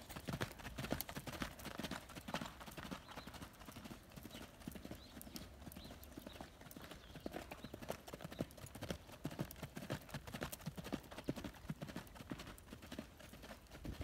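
Hoofbeats of a ridden Icelandic horse on a sand arena, a continuous run of quick strikes as it moves around the track.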